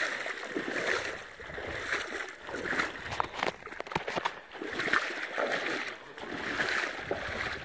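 Shallow marsh water splashing and sloshing in uneven swells, as of someone wading through it.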